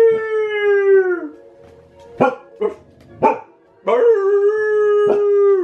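Dog howling: a long held howl that sags and trails off, a few short yips, then a second long howl from about four seconds in that drops off at the end.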